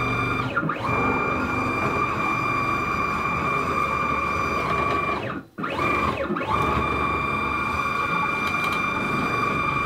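Stepper motors of a homemade CNC router driving the axes along lead screws at a 4500 mm/min feed, giving a steady high whine. About half a second in, and again around five and a half seconds in, the pitch slides down and back up as the axis slows, stops briefly and speeds up again.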